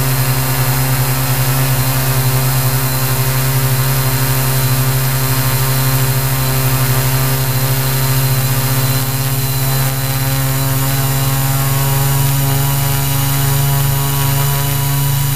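The electric motors and propellers of a Q800 multirotor drone, running at a steady hover: a constant droning hum with a high whine above it, at an even pitch and level. Heard close up from a camera mounted on the drone itself.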